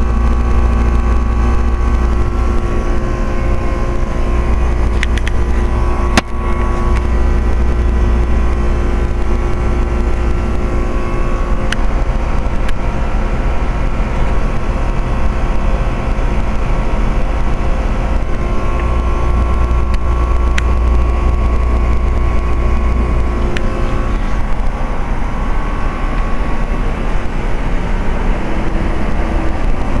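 2003 Rheem Classic 1.5-ton heat pump's outdoor unit running in heat mode: compressor and condenser fan making a steady low hum with several steady tones. A single sharp knock comes about six seconds in.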